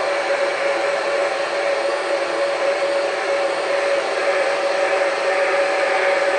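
Hair dryer running steadily: a constant rush of blown air with a steady whining tone, unchanging in level.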